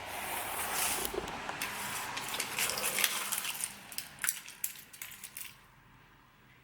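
Crunching and scraping of loose broken Bondo body-filler chunks, with a run of sharp clicks and rattles towards the end, stopping about five and a half seconds in.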